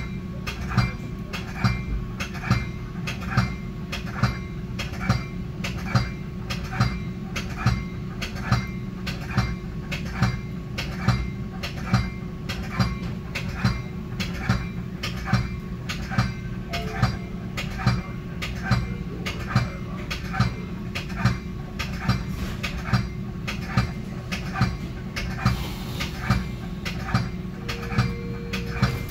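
Train bell ringing in steady, evenly spaced strokes over the low rumble of a Metra commuter train pulling out of a station, with a steady hum underneath.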